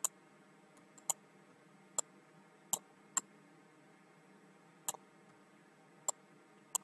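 Computer mouse clicking, about eight single sharp clicks at irregular intervals of roughly one to two seconds.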